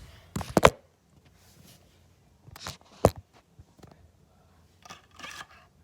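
Short clicks and knocks of small craft items being handled and set down. The loudest is a quick double knock about half a second in, with single sharp clicks about three seconds in and a soft rustle near the end.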